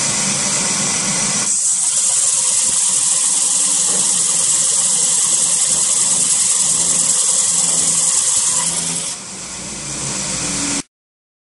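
KPSh-80 round-stock belt sanding machine running, its abrasive belt sanding a 32 mm wooden stick as it is fed through: a loud, steady hiss that turns brighter about a second and a half in and drops about nine seconds in as the stick comes out. The sound cuts off abruptly near the end.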